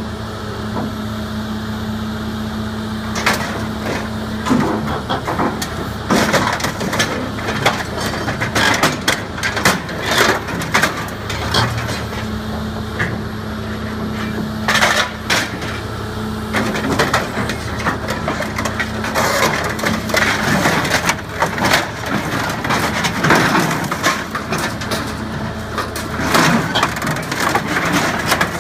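Heavy hydraulic machinery's diesel engine running steadily while the steel of a bulldozer is crushed and torn apart, with repeated irregular crunching and sharp cracking of metal.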